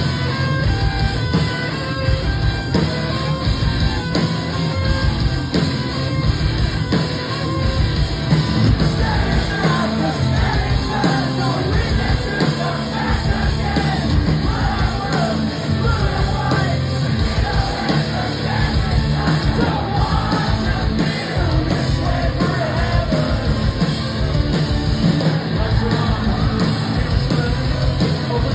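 Post-hardcore band playing live: drums, distorted electric guitars and bass, with a singer alternately singing and yelling over them, heard from within the crowd.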